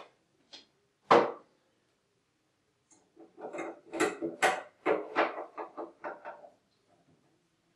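Screwdriver and metal parts clicking and knocking as the overflow tray is screwed to the underside of a coffee machine: a few sharp clicks in the first second or so, the loudest just after one second, then a run of quick irregular knocks and rattles.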